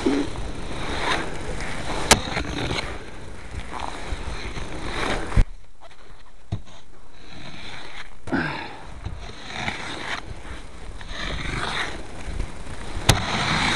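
Heavy wet snow being scraped and swept off a truck toolbox in repeated rough strokes, with a few sharp clicks and a quieter pause in the middle.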